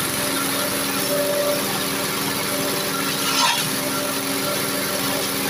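Engine-driven grass chopper machines running steadily at constant speed while being fed leafy forage, the steady engine hum mixed with the noise of the material being cut.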